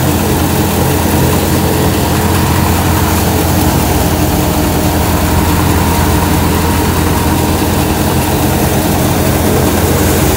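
A tractor engine running steadily under load, driving a threshing machine as straw is fed in, the two making one continuous loud drone.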